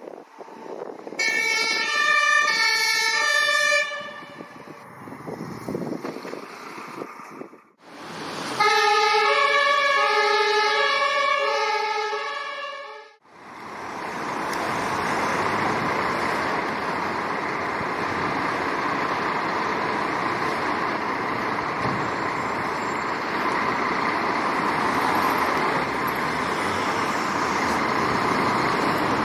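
Two-tone compressed-air siren (Presslufthorn) of German fire engines sounding in two spells, each a few seconds of alternating high and low notes. After that comes a steady engine noise from the fire engines running at the scene.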